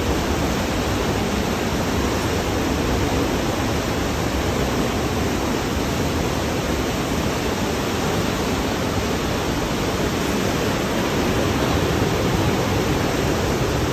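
Whitewater of the Partnach river rushing through a narrow rock gorge: a loud, steady, unbroken noise of fast-flowing water.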